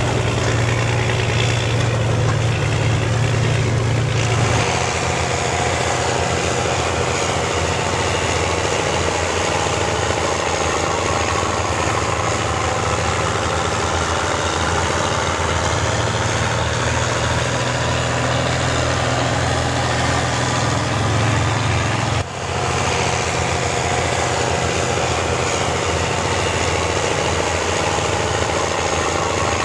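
Heavy diesel engines of large four-wheel-drive farm tractors running steadily. The sound shifts abruptly about four seconds in and again about twenty-two seconds in.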